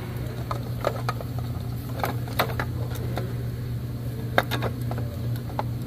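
Scattered light clicks and knocks of a new fuel filter cartridge being handled and pushed into its housing on a 5.9 Cummins diesel, over a steady low hum.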